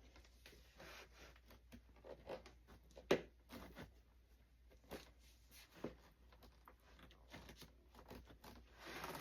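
Faint handling noises as parts of a foam RC model airplane are fitted together by hand: scattered small clicks, scrapes and rustles, with one sharper knock about three seconds in and a longer rustle near the end.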